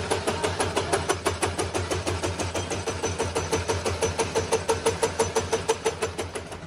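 Rotating cutter head milling the end of a steel hydraulic-breaker chisel: the tool bit strikes the steel once each turn in a fast, even knocking over the steady hum of the machine's motor.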